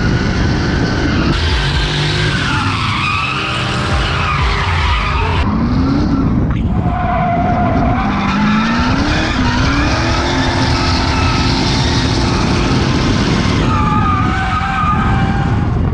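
Nissan Silvia S15 drift car sliding sideways: the engine revs up and down again and again as the throttle is worked, over the continuous skid of the rear tyres spinning in smoke.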